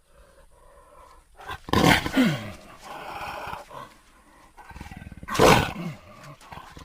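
Big-cat creature sound effects for the Jagupard: two loud roars, about two seconds and five and a half seconds in, the first dropping in pitch at its end, with quieter growling between them.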